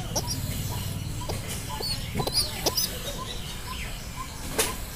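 Short, high bird chirps, several in quick succession in the middle, over a low steady hum that fades out. One sharp click near the end.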